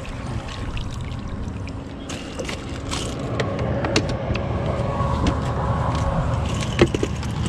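Fishing rods knocking and clicking against each other and the carpeted deck of a bass boat as they are handled, several short knocks over a steady low rumble with a faint hum.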